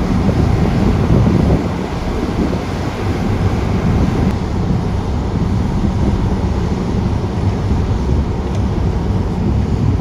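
Several Liugong single-drum road rollers driving together, their diesel engines making a steady low drone, with wind buffeting the microphone.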